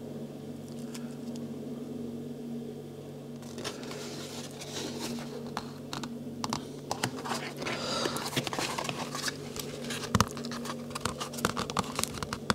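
A glued leather knife sheath being folded and pressed together by hand: handling noise of rustles, scrapes and many small clicks that starts a few seconds in, with a sharp knock about ten seconds in. A steady low hum runs underneath.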